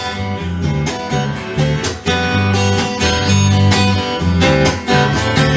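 Song accompaniment between sung lines: strummed acoustic guitar with a bass line.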